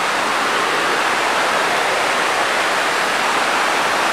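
Mountain river rushing over boulders in rapids: a steady, loud rush of white water.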